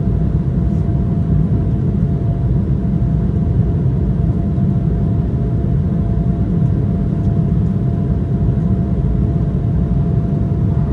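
Steady cabin noise of an Embraer 175 airliner in flight: a loud, even low rumble of its twin GE CF34 jet engines and rushing air, with a faint steady whine.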